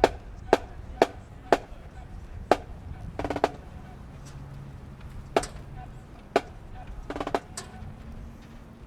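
Sharp drumstick clicks from a marching band's drumline keeping a slow steady beat, about one or two a second, with a quick flurry of clicks twice.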